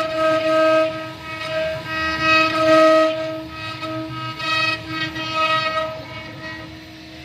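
Spindle of a mini stone CNC router running with a steady whine that holds one pitch, swelling louder and rougher every second or so as the bit works the stone, and easing off near the end.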